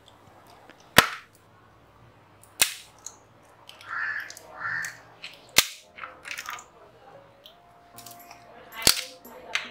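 Blue plastic shrink-wrap being peeled off a lithium battery cell: four sharp snaps, about a second in, near 2.5 s, near 5.5 s and near 9 s, with softer crinkling and crackling of the plastic between them.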